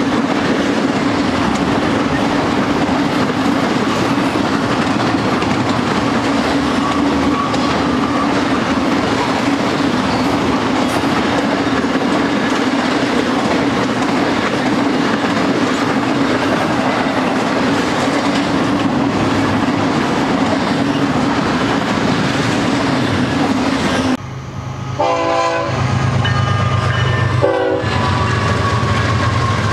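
Intermodal freight train of trailers and double-stacked containers on well cars rolling past close by: a steady rumble and clatter of wheels on rail. About 24 seconds in the sound cuts to a train horn sounding in several short blasts over a low, steady drone.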